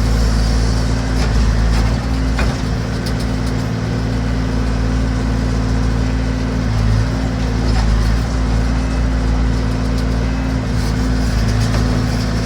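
Massey Ferguson BX 50 backhoe's engine running steadily, with a few short knocks over it.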